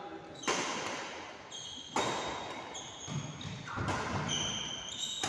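Badminton rackets striking a shuttlecock in a doubles rally, three sharp hits about a second and a half apart, each echoing in the large hall.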